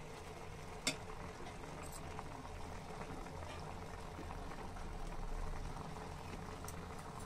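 Grated carrots for gajar ka halwa bubbling steadily in their own liquid in a steel pan over a high gas flame, the water boiling off. A single short click about a second in.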